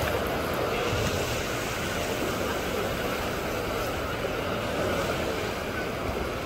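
Steady crowded-beach ambience: many distant voices of bathers blending into one another over shallow sea water lapping and splashing.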